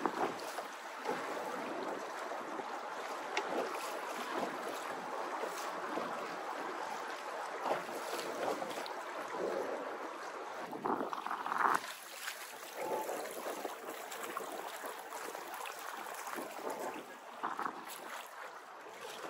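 Choppy water slapping and splashing against the hull of a small mini pontoon boat (Pond Prowler 10) under way, with wind on the microphone. It goes irregularly, with a louder splash about eleven seconds in.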